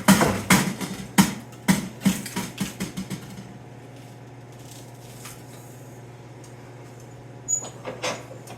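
Metal clicks and clanks from a hand-worked metal-shaping tool being operated on sheet metal, about two a second for three seconds, then they stop. A steady low hum follows, and two more knocks come near the end.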